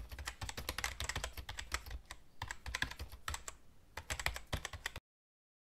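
Computer keyboard typing sound effect: rapid, irregular key clicks with brief pauses, cutting off suddenly about five seconds in.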